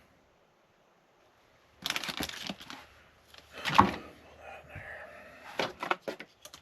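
Computer parts being handled, with irregular plastic and metal clattering, a louder knock about halfway through and a quick run of sharp clicks near the end.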